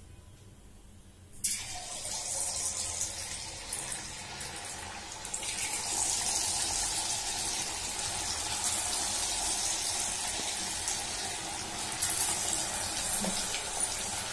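Hot oil in a kadai sizzling as cornflour-coated boiled egg halves are dropped in to deep-fry. The sizzle starts suddenly about a second and a half in and grows louder about five seconds in.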